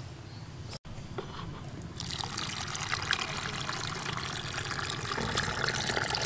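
Thick brown liquid poured from a plastic basin into a plastic jar packed with cucumber pieces, splashing and trickling over them. The pour starts about two seconds in and then runs steadily, after a few faint handling clicks.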